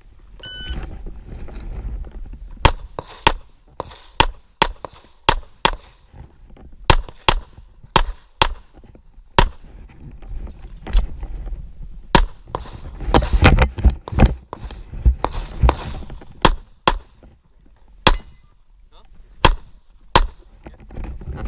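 A shot timer's electronic start beep, then about two seconds later a long string of handgun shots, roughly two dozen, many fired in quick pairs, with short pauses as the shooter moves between targets during a timed practical pistol stage.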